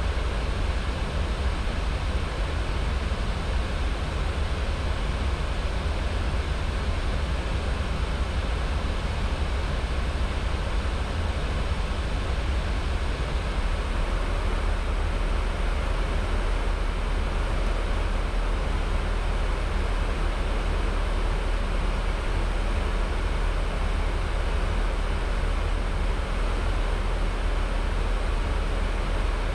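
Steady airflow and engine noise inside an Airbus A320 in cruise, an even hiss over a heavier low rumble, unchanging throughout.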